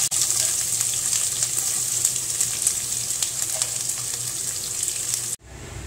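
Sliced onions sizzling in hot ghee in a kadai, a steady hiss full of fine crackles; it cuts off abruptly near the end.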